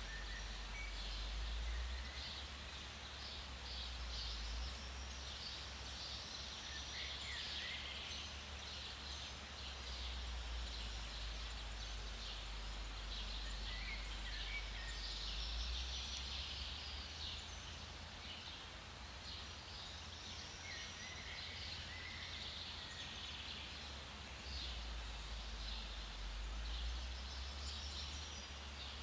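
Forest birds chirping and calling in a dense chorus of high twittering, with a few short, sliding whistled notes standing out. A low rumble sits underneath, coming and going.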